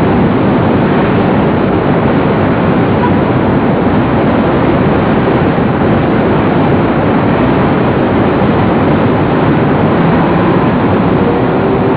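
Loud, steady noise of heavy city traffic: buses, trucks and cars running in a congested street.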